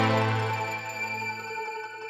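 Ambient background music: held, sustained chords fading away.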